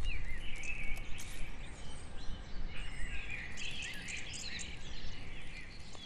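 Small birds chirping and twittering in short calls over a low, steady outdoor rumble.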